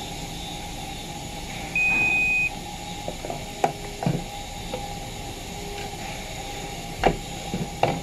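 Digital multimeter beeping: one short steady tone about two seconds in, followed by a few light clicks and knocks as the test probes and meter are handled.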